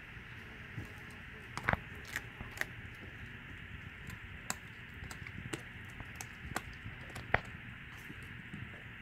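A Lycan Shepherd puppy chewing a whole raw tilapia: irregular clicks and crunches of small teeth on fish bone and flesh, the sharpest about two seconds in and again near the end.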